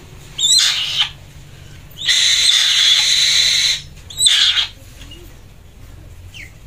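Black-winged kite giving three harsh, high screeches: a short one, then one lasting nearly two seconds, then another short one.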